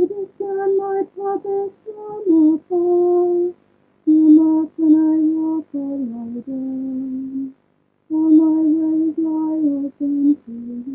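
A lone woman's voice singing a slow, unaccompanied melody in three phrases with short pauses between. Each phrase is made of held notes that step downward and come to rest on a low note.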